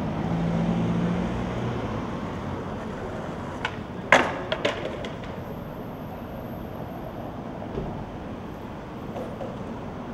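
Steady city street and traffic noise, with a low rumble in the first couple of seconds. About four seconds in comes a quick cluster of sharp skateboard clacks as the board hits the pavement, and a lighter click follows a few seconds later.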